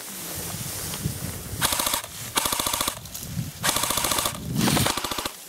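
Airsoft rifles firing on full auto: about four short bursts of rapid clicking shots, starting about a second and a half in.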